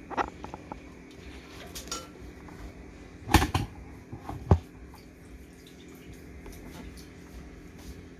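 Metal utensils and dishes clinking and knocking as food is dished up from pots onto plates. There are a few light clicks at first, then a louder clatter about three and a half seconds in, and one sharp knock about a second after that.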